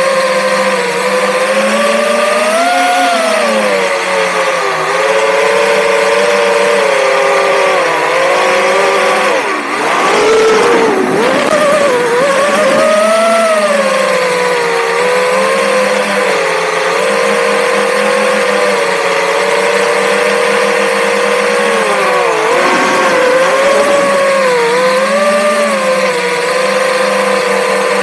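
FPV racing drone's brushless motors and propellers whining, recorded on board the drone, the pitch rising and falling with the throttle. About ten seconds in, and again a little past twenty-two seconds, the tone briefly breaks up into crossing pitches as the throttle changes sharply.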